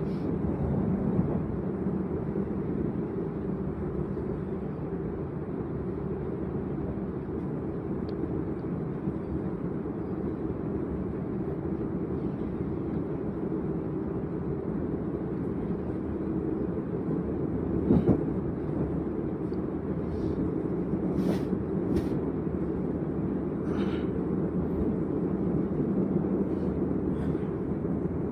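Inside a Z 50000 (Bombardier Francilien) electric multiple unit running between stations: a steady low rumble of the train under way, with a few sharp clicks and knocks in the second half, the loudest about two-thirds through.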